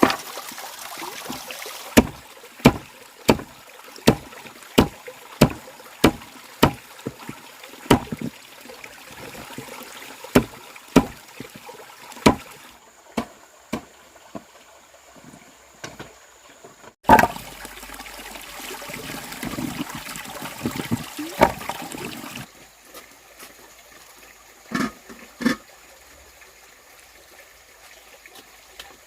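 A series of sharp knocks or blows, steady at about one and a half a second for several seconds, then slower and irregular, over a steady hiss. A few more knocks come around the middle and two near the end, and the background changes abruptly several times.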